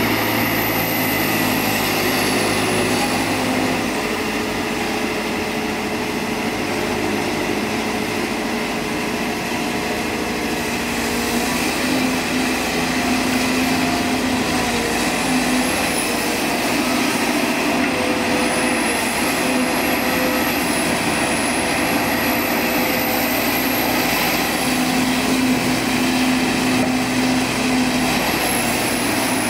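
Sumitomo SH210 hydraulic excavator's diesel engine running steadily under work, with a thin high whine that wavers in pitch; the engine note shifts slightly as the load changes.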